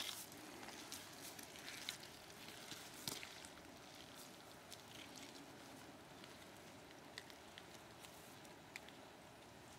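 Near silence: faint outdoor hiss with scattered small ticks.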